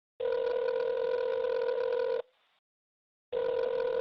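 Telephone ringback tone, the buzzing tone heard while a call rings through: one steady two-second ring, a pause of about a second, then the next ring starting near the end.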